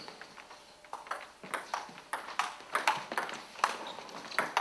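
Table tennis doubles rally: the ball clicking off bats and table in a quick, even series of knocks, about three a second, starting about a second in.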